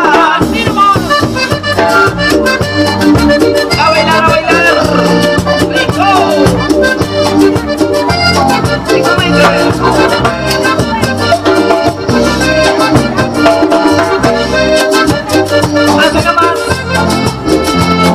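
Cumbia band playing an instrumental passage: a steady dance beat under a sustained, ornamented lead melody.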